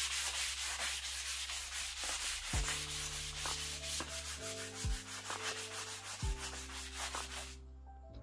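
Hand sanding of a painted bicycle frame with a sanding block: rapid back-and-forth scraping strokes, taking down the old red paint. The sanding stops shortly before the end.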